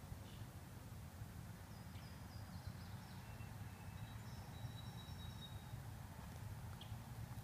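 Faint outdoor ambience: a steady low rumble with a few faint, high bird chirps about two to five seconds in.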